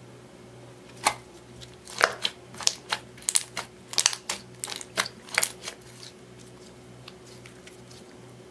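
Clear glitter slime being pressed and kneaded by hand, giving a quick irregular run of sharp sticky clicks and pops from about a second in until a little past halfway, then only faint handling.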